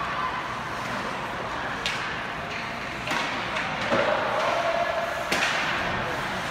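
Ice hockey play in a rink: a steady hum of spectator chatter, broken by a handful of sharp clacks of sticks and puck. A voice calls out briefly about four seconds in.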